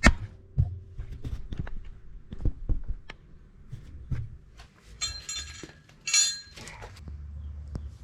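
Hand tools and metal parts being handled during rear-axle and brake work: a string of sharp metal clicks and knocks, the loudest right at the start, with two brief metallic jingling rattles about five and six seconds in.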